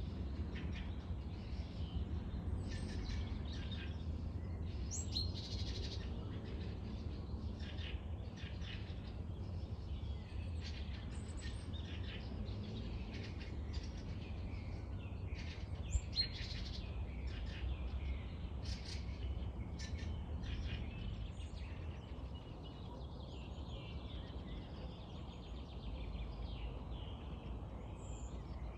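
Several wild birds chirping and singing in short, repeated phrases over a steady low rumble of wind.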